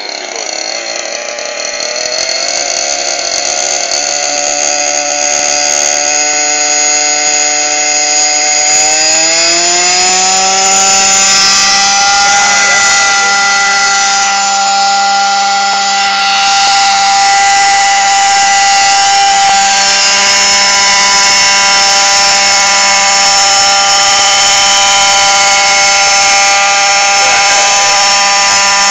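Small engine of a gasoline-powered model helicopter spooling up for takeoff. It builds in loudness, rises in pitch about 8 to 11 seconds in, then holds a steady high whine.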